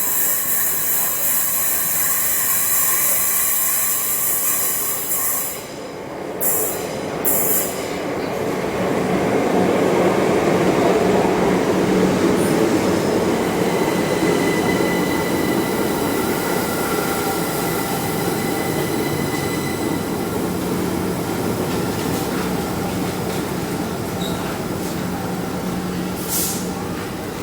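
Passenger train moving through a station platform: a loud hiss with steady squealing tones for the first few seconds, then the rumble of wheels on rail with a steady hum, swelling about ten seconds in and holding.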